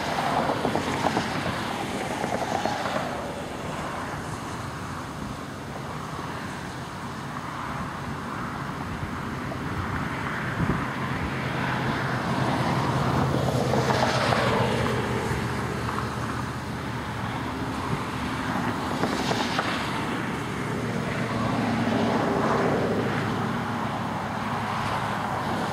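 Wind buffeting the microphone in a steady rush that swells and eases in gusts, loudest about halfway through and again near the end.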